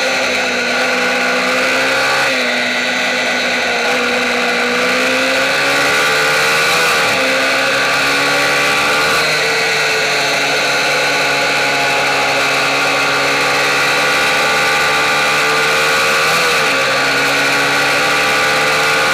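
Small single-cylinder MiniGP racing motorcycle engine at high revs, heard close up from a camera mounted on the bike. The pitch rises and falls as the rider shifts gears and brakes for corners, with sharp dips a few times.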